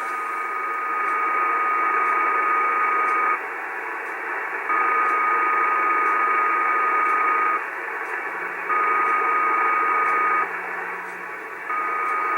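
Icom 730 shortwave receiver on the 75-metre band putting out steady hiss with a steady whistle-like tone that comes and goes in a repeating cycle, on for two to three seconds, then gone for about a second. This is the repeating interference noise sitting on 3800 kHz.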